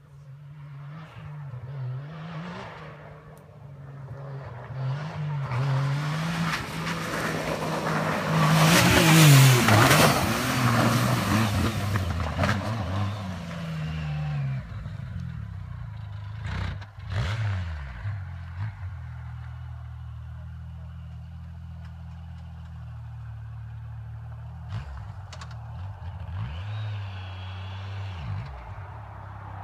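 Yamaha YXZ1000R side-by-side's three-cylinder engine revving and shifting as it drives past hard, loudest about nine seconds in with a rush of tyre and dirt noise, then moving away. It settles to a steadier, lower engine note in the second half.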